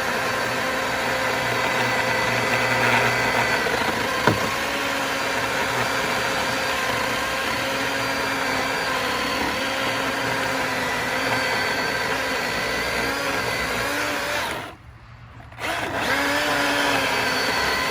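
Milwaukee Fuel cordless chainsaw running steadily under load, cutting wood. The sound drops out suddenly for about a second near the end, then resumes.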